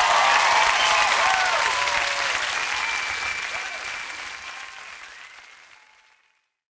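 Studio audience applauding and cheering with whoops as a rock song ends, dying away over about six seconds.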